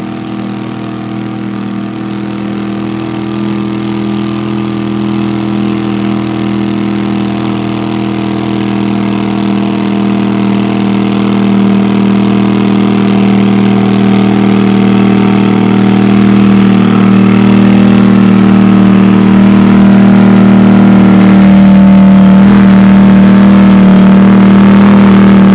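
Pulling garden tractor's engine running hard at steady high revs as it drags a weight-transfer sled, getting steadily louder as it comes closer.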